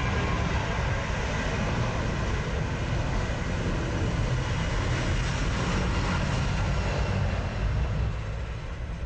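Boeing 737-800 airliner's jet engines running as it moves along the runway: a steady rushing noise with a heavy low rumble, easing slightly near the end.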